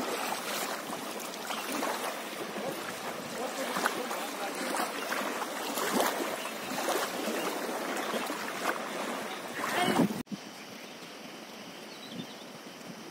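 Rushing water of a monsoon-flooded, muddy river, lapping at the bank, with scattered crackles and wind noise on the microphone. About ten seconds in it cuts off sharply to a quieter, steadier river rush.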